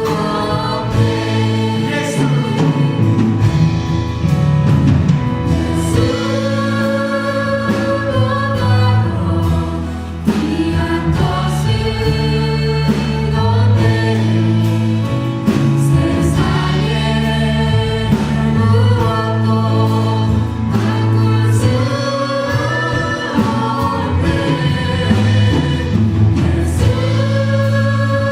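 Church praise team singing a worship song with band accompaniment, voices holding long notes over a steady bass.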